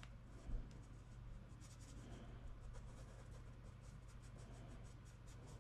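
Faint scratchy rubbing of a PanPastel sponge applicator stroked back and forth across pastel paper, laying in a streaky cloud, over a low steady hum.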